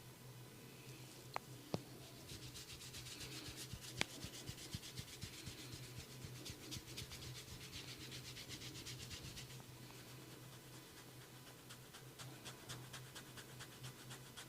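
Hands rubbing and scratching through hair on a scalp in quick, rhythmic strokes, faint and dry, with a few sharp clicks, the loudest about four seconds in.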